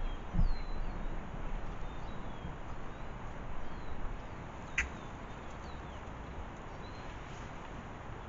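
Small birds chirping in short, falling calls over a steady outdoor hiss. A low bump comes just after the start, and a single sharp click falls near the middle.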